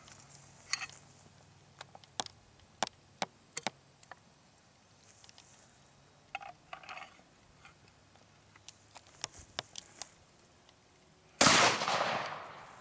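Scattered clicks and knocks of the gun being handled. About eleven seconds in comes a single loud shot from a Richardson 12-gauge slam-fire shotgun firing a Federal maximum-load triple-aught buckshot shell, its echo dying away over a second or so.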